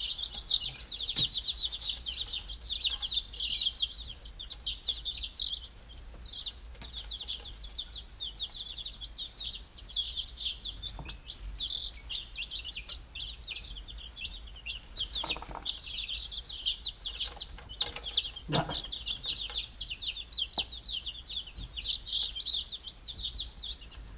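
A flock of young chicks peeping continuously, with many short, high cheeps overlapping. A few dull knocks sound among them.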